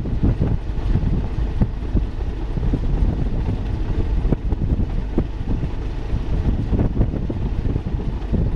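Wind buffeting the microphone in irregular thumps over a low rumble from a Case AFX8010 combine harvester at work in the field.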